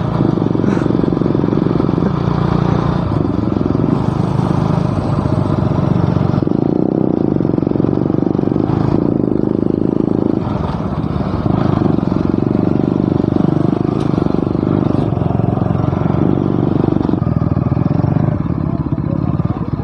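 Motorcycle engine running while riding, its note stepping up and down several times.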